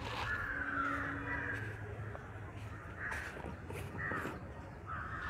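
Crows cawing: a long run of harsh calls right at the start, then several shorter caws from about three seconds in to the end.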